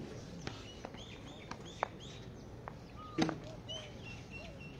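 Birds chirping in a series of short, quick chirps, with a few sharp clicks and one brief louder knock about three seconds in.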